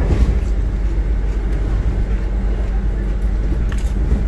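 Steady low rumble of a train running, heard inside the passenger carriage.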